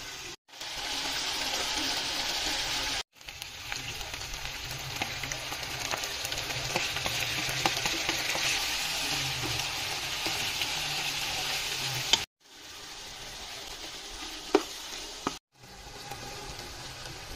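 Chicken frying in oil in a pan, a steady sizzle with a few sharp clicks of a spatula against the pan. The sizzle drops out briefly several times and comes back.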